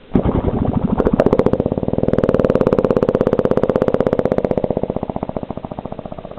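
A recorded fart slowed far down with Audacity's Change Speed effect, played back as a drawn-out rattle of rapid, even pulses that starts abruptly and fades toward the end.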